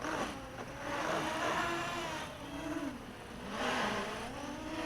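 A mini quadcopter's brushless motors and propellers whine in flight. The pitch rises and falls several times as the throttle is worked.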